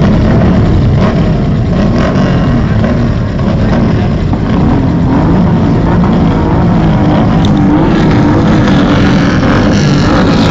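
Motorcycle engines running loud and steady, a deep low rumble with a wavering pitch.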